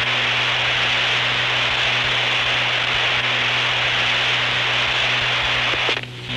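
Radio frequency hiss from a keyed transmitter carrying no voice, a steady rushing noise over a low hum that cuts off near the end. It is an open carrier with no voice modulation, the keying heard without any words.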